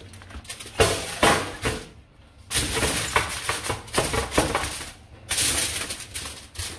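Aluminium foil crinkling and rustling in several bursts as it is pressed and folded over a baking pan; near the end, raw plantain slices slide and patter off a plastic tray onto the foil.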